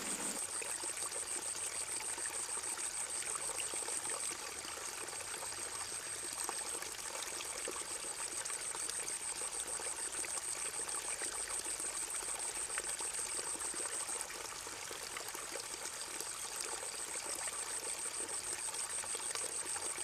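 A steady hiss like running or trickling water, with a thin high-pitched tone held through it. It drops a little in level about four seconds in and again about fourteen seconds in.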